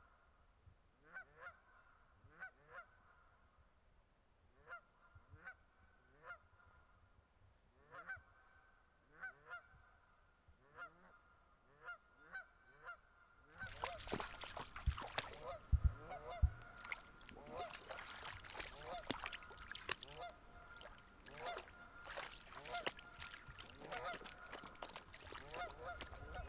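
A flock of geese honking: repeated short calls, one or two a second. From about halfway, louder splashing of shallow water joins the calls.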